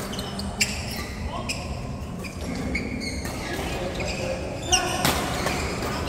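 Doubles rally on an indoor court: sharp hits about half a second in and again near five seconds, with sneakers squeaking and shuffling on the court floor, echoing in a large hall.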